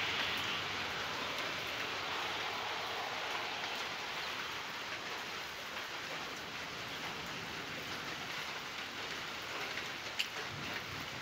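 Steady rain falling, an even hiss, with a couple of sharper ticks near the end.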